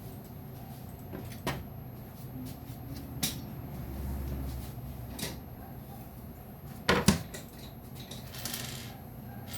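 Scattered knocks and clacks of parts and hand tools being handled while a soldering jig is put together by hand, the loudest a quick double knock about seven seconds in, with a short hiss near the end.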